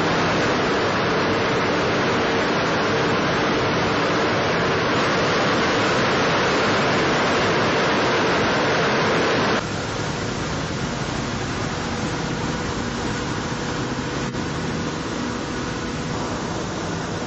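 Wright R-1820 Cyclone radial engines of a B-17G Flying Fortress running steadily: a loud, heavy rushing noise over a low engine hum. About ten seconds in it drops abruptly to a somewhat quieter level and carries on steadily.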